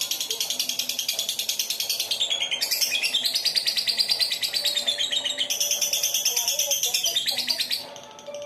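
Lovebird's long 'ngekek' chatter: a very fast, unbroken run of high-pitched trilling notes, dipping briefly in pitch a couple of seconds in and stopping shortly before the end.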